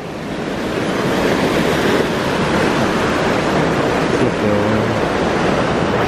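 Shallow mountain stream rushing over rocks, a steady full wash of water that grows louder over the first second as the microphone nears the water.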